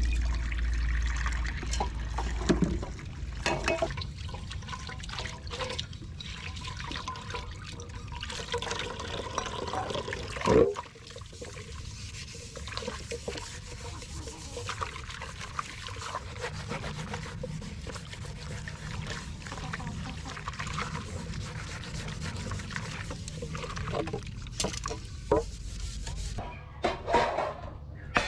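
Dishes washed by hand at an outdoor tap: water running and splashing in an aluminium basin while a sponge scrubs a plate and a pot, with scattered clinks and one loud knock about ten seconds in. Near the end, dishes clink as they are stacked in a plastic drying basket.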